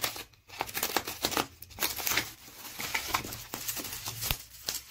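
Plastic packaging crinkling and rustling in short, irregular crackles as it is cut open.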